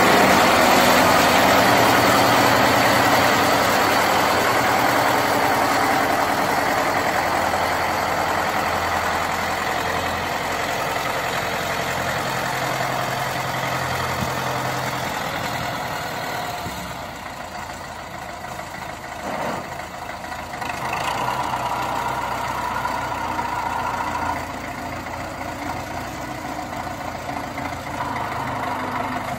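MTZ-82 tractor's four-cylinder diesel engine running: loud and close at first, then fainter as the tractor moves off, and louder again about twenty seconds in while it works the front loader.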